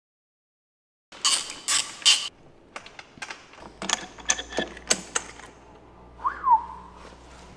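Metal clicks and clinks of hand tools and engine parts as the cylinder head is taken off a GasGas EC 300 two-stroke engine. They start about a second in, come thick at first and then scattered, and a short squeak rises and falls near the end.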